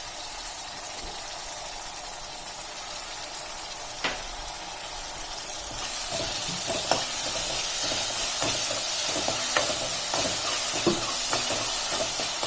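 Onions and ginger-garlic paste frying in oil in a kadai, sizzling steadily, with short clicks and scrapes of stirring. The sizzle grows louder about halfway through as the stirring picks up.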